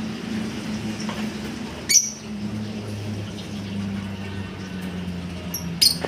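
Caged lovebirds giving two short, sharp, high-pitched chirps, one about two seconds in and one near the end, over a steady low hum.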